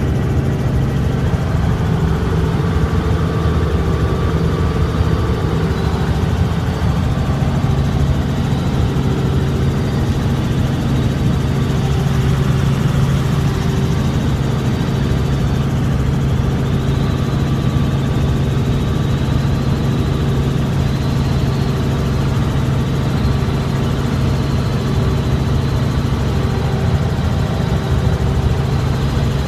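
Small helicopter's engine and rotors running steadily, heard from inside the cabin: an even, loud drone with a strong low hum.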